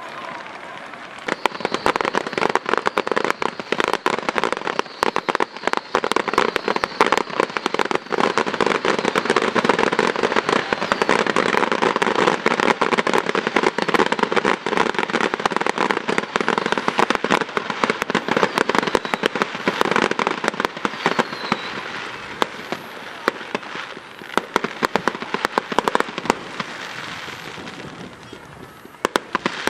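Fireworks display: a dense, rapid barrage of crackles and pops that starts about a second and a half in and thins out near the end.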